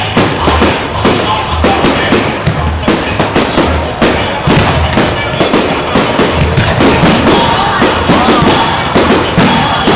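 Firework display barrage: rapid, overlapping bangs and crackling of shells bursting, running without a break. Music with a steady bass beat plays alongside.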